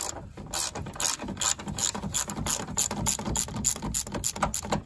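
Hand ratchet wrench clicking steadily, about four clicks a second, as it turns a small 8 mm radiator mounting bolt. The clicking stops just before the end.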